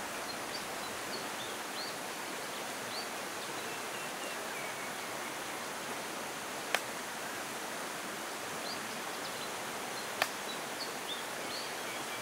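Shallow river running over rocks, a steady rushing hiss, with short high chirps scattered through it. Two sharp clicks stand out, about seven and ten seconds in.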